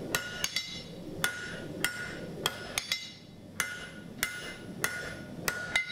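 Blacksmith's hammer striking red-hot steel bar on an anvil: a steady rhythm of blows, about two a second, each with a short bright metallic ring.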